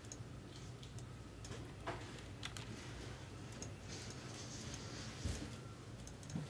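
A few faint, scattered clicks of a computer mouse and keyboard over a low, steady room hum.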